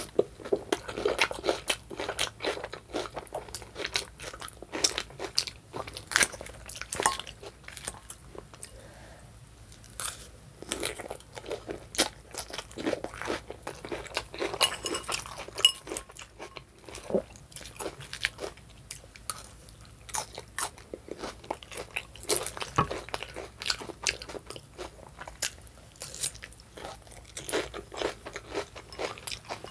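Close-miked chewing and crunching of a crisp salad of lettuce, cucumber, purple onion and croutons: many irregular crunches with wet chewing between them.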